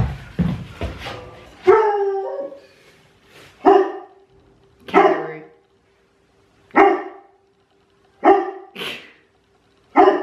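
A dog barking repeatedly, sharp single barks a second or two apart, after a few light knocks at the start. It is barking at wildlife outside: kangaroos, and foxes are about as well.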